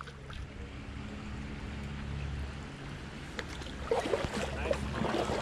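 Low wind rumble on the camera microphone over moving water. In the last couple of seconds come faint splashes and small handling clicks as a hooked smallmouth bass is played in to the bank on a spinning reel.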